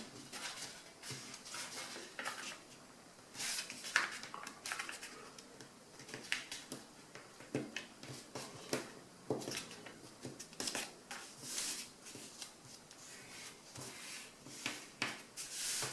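A sheet of printer paper being folded and creased by hand: scattered short rustles and crinkles.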